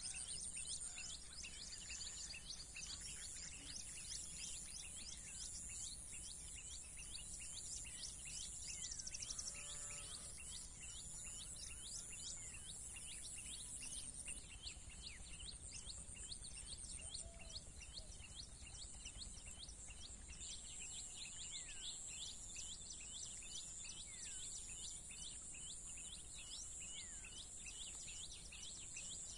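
Faint outdoor ambience: many small, quick bird chirps over a steady high insect drone, with a low even rumble underneath.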